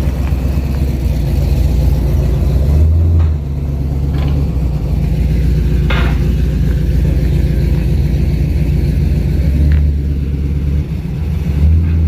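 A pickup truck's V8 engine running at a steady low rumble, with a few short clanks over it.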